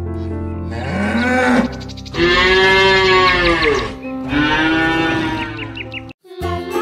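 A bovine mooing three times, the middle moo the longest and loudest, over background music with sustained notes.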